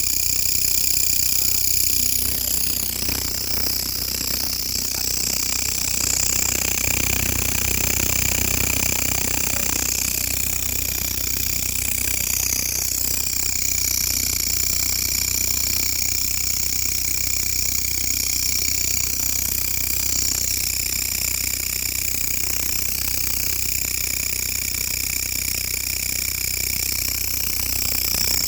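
A grasshopper-type insect stridulating: a continuous, high-pitched buzzing trill that holds steady without a break.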